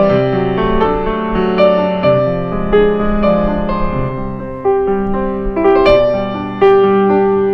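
Background piano music: single notes struck one after another over held lower chords.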